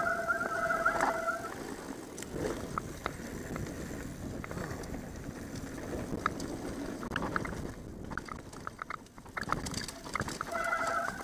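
Mountain bike rolling fast down a dry dirt trail: a steady rumble of tyres on dirt, with chain and frame rattling in sharp clicks over the bumps, busiest about seven to nine seconds in. A steady high buzz sounds for the first second and a half and again near the end.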